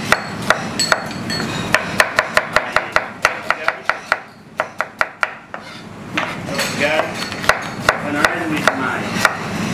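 Chef's knife dicing an onion on a cutting board: quick runs of sharp knife strikes, about four to five a second, thinning out near the middle and picking up again near the end.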